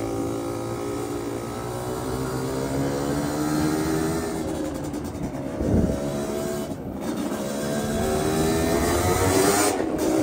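Yamaha DT two-stroke motorcycle engine under way, its pitch climbing as it pulls, dropping sharply about six seconds in, then climbing again.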